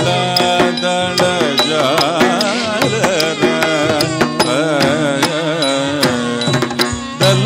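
Carnatic classical song: a singer's ornamented vocal line, its pitch sliding and oscillating, over a steady drone, with regular percussion strokes.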